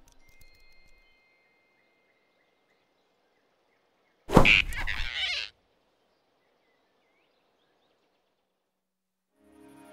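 Cartoon sound effect of a quick snatch: a sudden whoosh and thump a little over four seconds in, lasting about a second, with near silence around it.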